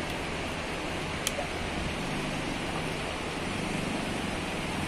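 Motorcycle engine idling steadily under a broad, even hiss, with one faint click about a second in.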